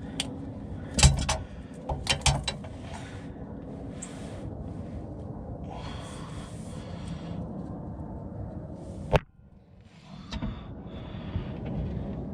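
Hand tools working on a car's fuel filter housing: metal clicks and knocks from grips being fitted and pulled on the housing. There is a sharp knock about a second in, a quick cluster a second later, and another about nine seconds in.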